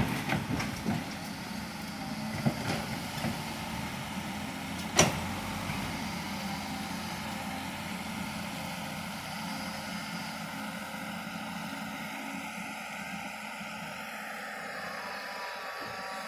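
Komatsu hydraulic excavator's diesel engine running steadily as it digs and swings soil into a dump truck. A few clicks and knocks come in the first seconds, and there is one sharp knock about five seconds in.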